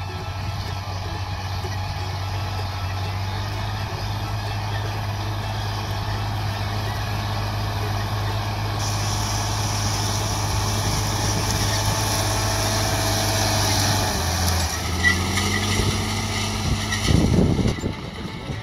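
John Deere 4320 tractor's diesel engine running steadily under load while pulling a field plow, growing louder as the tractor comes close and its note dropping as it passes. A brief low rumble comes near the end.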